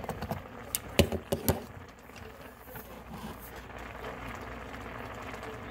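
A few sharp knocks and clacks of cookware being handled, the loudest about a second in and half a second later, then steady low background noise.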